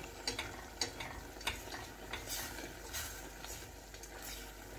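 Kitchen tongs stirring and turning chunks of meat in simmering tomato sauce in a stainless steel saucepan, with light clicks and scrapes against the pot every half second or so over a faint bubbling hiss.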